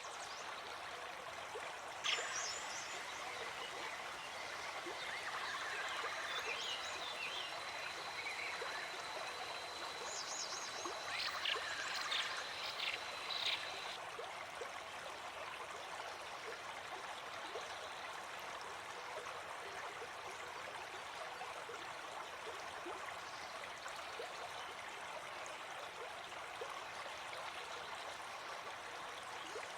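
Stream water flowing steadily. In the first half, short high calls and a thin steady whistling tone sound over it.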